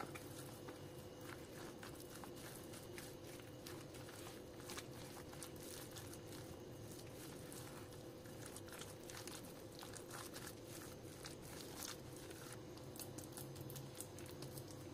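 Faint squishing and scraping of a silicone spatula mixing mashed boiled potato, shredded chicken and raw egg in a bowl, in small irregular strokes, over a steady low hum.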